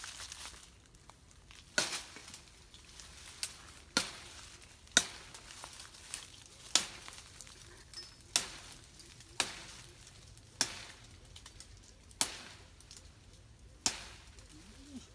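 A series of about a dozen sharp chopping strikes at an irregular pace, roughly one a second, with faint crackling between them.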